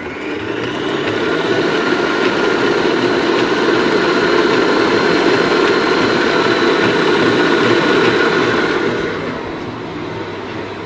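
Electric stand mixer running fast, whipping cream with icing sugar and cocoa into a chocolate chantilly cream in its stainless steel bowl. It is a steady whirring hum that builds over the first second and gets quieter about nine seconds in.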